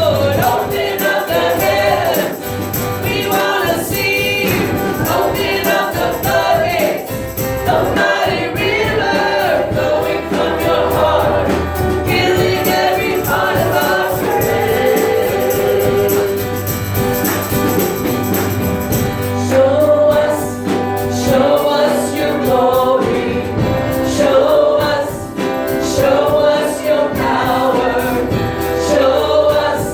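Worship song sung by several voices over a band with steady low bass notes; the drums come in more strongly about two-thirds of the way through.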